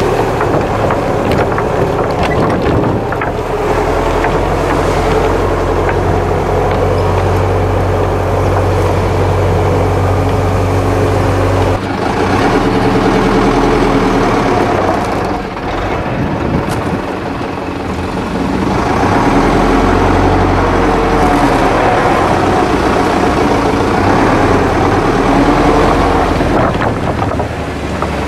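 Off-road vehicle engine running under load over a rough, muddy track, heard from inside the cab along with body rattles. Its note drops and picks up again a couple of times.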